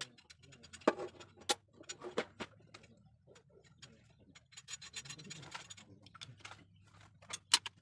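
Steel parts of a homemade folding single-shot gun being worked by hand: a few sharp metal clicks, with a stretch of metal rubbing and scraping about five seconds in, and two more clicks near the end.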